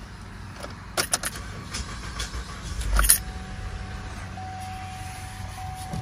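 Car keys jangling and clicking at the ignition of a 2010 Chevy Traverse, with a louder knock about three seconds in. A steady thin tone starts right after the knock and holds, as the ignition is switched on.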